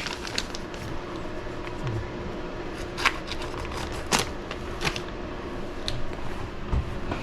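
A plastic kit parts bag being opened and rummaged through, with a low rustle and a few sharp clicks as small plastic parts are handled.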